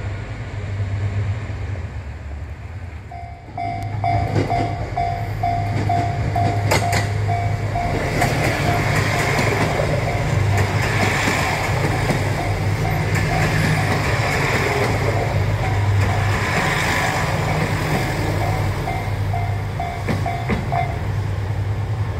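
Japanese level-crossing alarm bell ringing about twice a second, starting a few seconds in and stopping near the end, as a train passes with a steady rumble and rush of wheels on rails.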